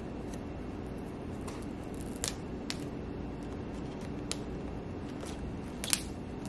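Paper tear strips being pulled off the sealed wrap of an iPhone box, with light scratching and a few short sharp clicks, heard over a low steady room hum.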